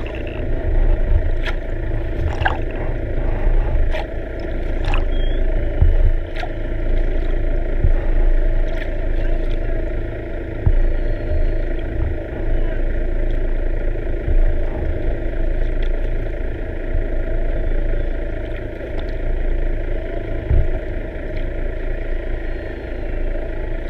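Underwater sound through a camera housing: a boat's motor running, heard through the water as a steady hum and low rumble, with scattered sharp clicks.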